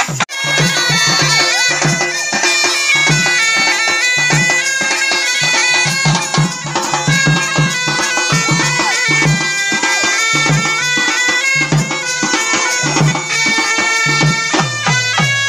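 Indian wedding procession band (band baja) playing loud: horns carry a stepping, reedy melody over a steady beat of barrel drums and side drums. The sound breaks off for an instant just after the start.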